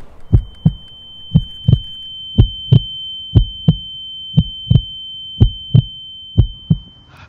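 Heartbeat sound effect: a slow double thump about once a second, under a steady high-pitched ringing tone that cuts off near the end.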